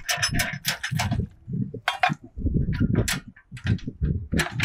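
A metal mug clinking and knocking against the rim of an aluminium milk can as it is dipped in and lifted out, in a rapid run of sharp metallic clicks. Gusty wind buffets the microphone underneath.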